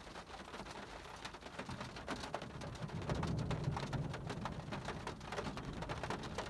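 Heavy rain pattering on a car's roof, heard from inside the car, with a low rumble of thunder building about two seconds in.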